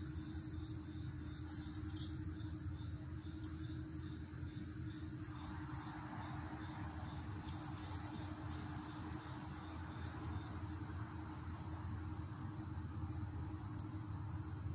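Crickets trilling in a steady, even, high-pitched chorus at night, over a low rumble, with a few faint clicks about halfway through.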